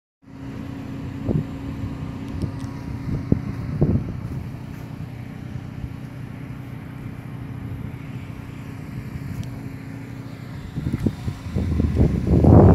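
A steady low engine-like hum with a constant tone, marked by a few short knocks in the first few seconds; louder, irregular noise builds near the end.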